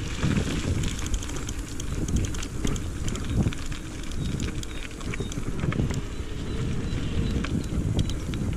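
Wind rumbling on the microphone while riding a bicycle along a rough path, with tyre noise and many small clicks and rattles from the bike.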